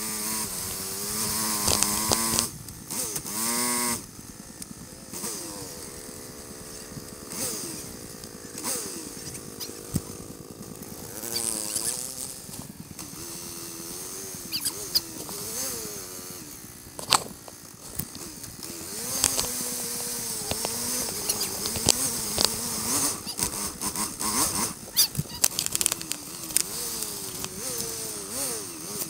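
ATV (quad) engine revving up and down repeatedly while riding, its pitch rising and falling over and over, with a rushing hiss and scattered sharp knocks.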